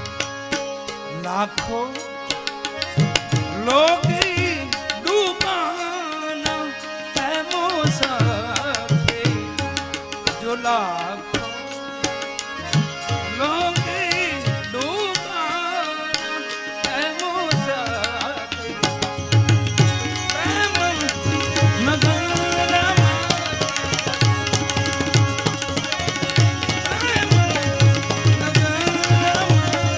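Devotional bhajan music with a harmonium, hand drums and a wavering, sliding melodic line over it. The drum's deep strokes settle into a steady beat about two-thirds of the way through.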